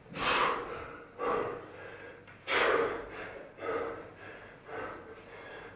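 A man's heavy, laboured breathing under physical strain: about five loud breaths roughly a second apart, the strongest near the middle.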